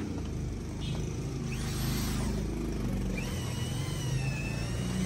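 Cordless power drill spinning up about one and a half seconds in, then running with a wavering whine as it bores a hole into a gas stove's burner cap to fix a faulty burner. A low steady hum runs underneath.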